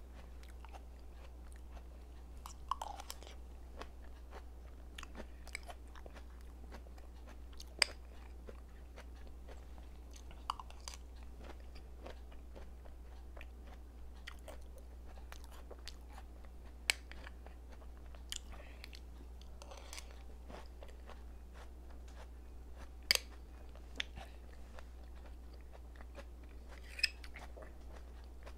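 Close-miked eating: soft chewing and mouth smacks, with a handful of sharp clicks as a metal spoon taps and scrapes a small cup. Under it runs a steady low hum.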